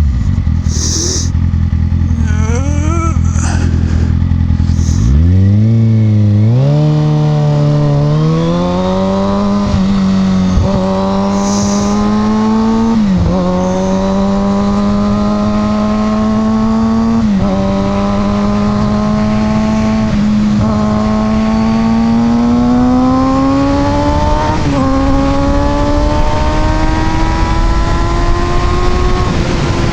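Motorcycle engine running steadily for about five seconds, then pulling away and accelerating through the gears, its pitch climbing in long stages with a short dip at each upshift.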